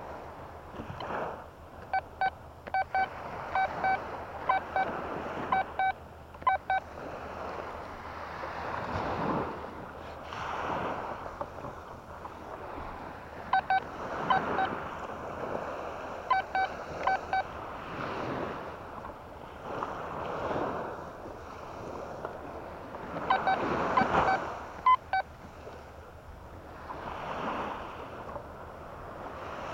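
A Quest Q40 metal detector gives three bursts of short, repeated beeps, each a target signal from metal under the sand as the coil sweeps over it. Under the beeps is a steady swell and wash of surf coming in every couple of seconds.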